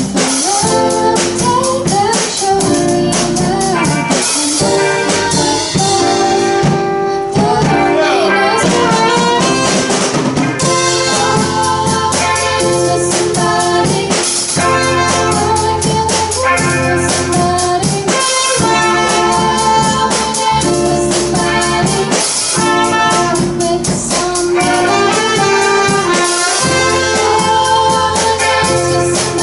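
A student garage band playing a song live, with a drum kit keeping a steady beat under sustained pitched instruments.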